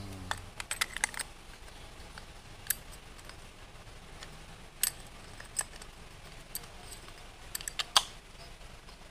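Sharp metallic clicks and clinks from the metal parts of a Sougayilang Thunder LS40R overhead fishing reel being handled and fitted together by hand, coming at irregular moments, with the loudest click near the end.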